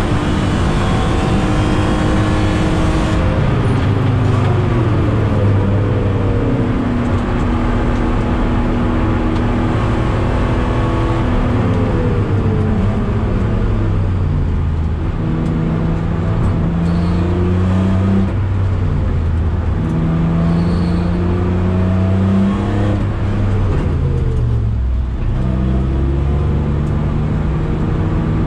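BMW E46 M3's 3.2-litre straight-six engine heard from inside the cabin while driven on track. Its pitch falls at first, then climbs through the gears with a step down at each upshift, drops away again near the end and picks up once more, over a steady hiss.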